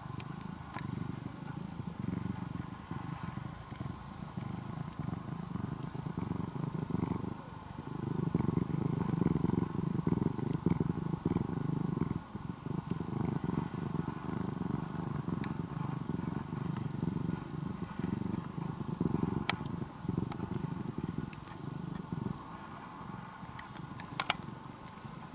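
Domestic cat purring close up: a low, engine-like rumble that swells and dips with each breath, loudest for a few seconds about a third of the way in.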